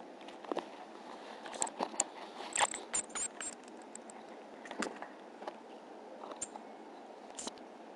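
Pygmy marmosets clambering against the camera and the plastic of their treat station: scattered light clicks, taps and scratches of small claws and fur on the lens and plastic. A few very short, very high squeaks come close together about three seconds in.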